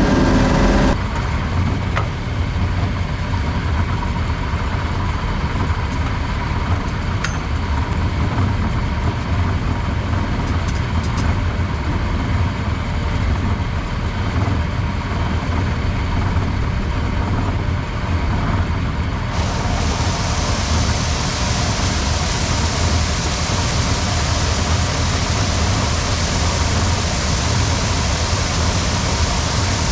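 Heavy farm machinery engine running steadily under load, with a dense mechanical rumble. About 19 seconds in, a steady hiss comes in over the rumble and stays.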